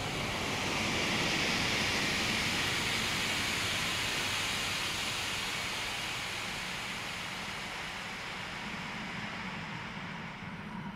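Slowed-down, sound-designed gunshot for high-speed footage of a .308 rifle firing through a suppressor: a long rushing whoosh that swells over the first two seconds and then slowly fades.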